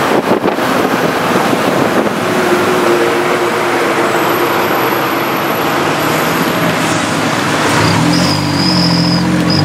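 Engine and road noise of a tuk tuk moving through heavy city traffic, heard from inside its open-sided cab. A steady rush runs throughout, and a pitched tone that wavers comes in near the end.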